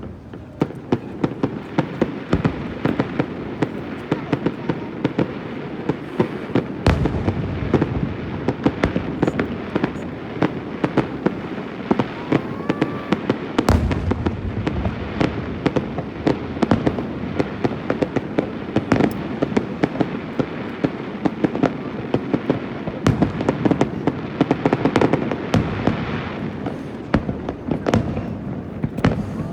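Aerial fireworks display bursting in rapid succession: a dense run of sharp bangs and crackles, with heavier booms about seven and fourteen seconds in.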